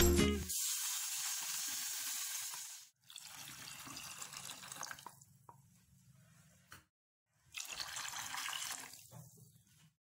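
Water being poured into a pot of fried onion-tomato masala for a curry, heard as a rushing hiss. It comes in a few separate stretches with silent gaps between them.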